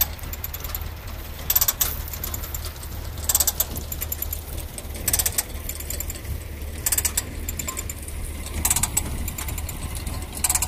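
Compost spreader trailer working, its feed mechanism giving a short burst of ratchet-like clicking about every 1.8 seconds, over the steady low hum of the engine driving it.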